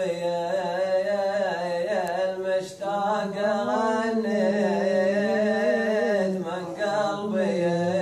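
A man singing an Omani shayla unaccompanied: long chanted lines with a wavering, ornamented pitch, broken by short breaths about two and a half seconds in and again near seven seconds.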